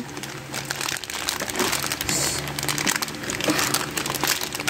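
Thin clear plastic packaging bag crinkling continuously as it is handled in the fingers.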